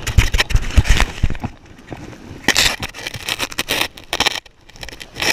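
Close scraping and crackling handling noise on a body-worn camera, with a cluster of bumps in the first second or so and a rush of hiss about halfway through.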